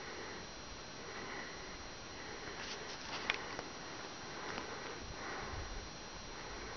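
Breathing or sniffing close to the microphone, repeating about once a second. A few sharp twig cracks come about three seconds in, and low handling thumps near the end.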